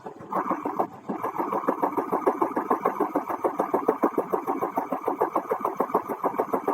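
A machine running with a rapid, even rhythmic pulsing of about eight to nine beats a second, with a short break about a second in.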